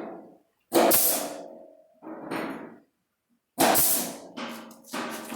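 Sheet-metal body panel clanking: several sharp metallic knocks, each ringing and dying away over about a second.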